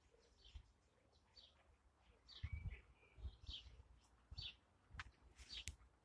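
Faint garden birdsong: short high chirps repeated about once a second, with a lower whistled note about two and a half seconds in. Soft low thumps sound beneath, and a sharp click comes near the end.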